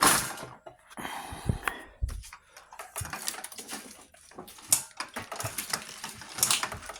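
Irregular clicks, knocks and light rattles of metal parts being handled: a motorized-bicycle engine's clutch cover and clutch plate assembly worked by hand.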